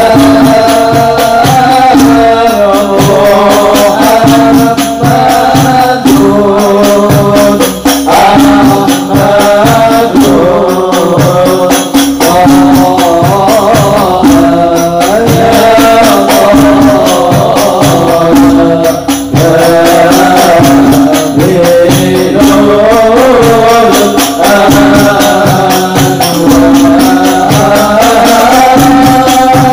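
Men singing an Islamic sholawat in the Banjari style, the melismatic vocal line carried over a dense, continuous beat of hand-struck frame drums (terbang/rebana).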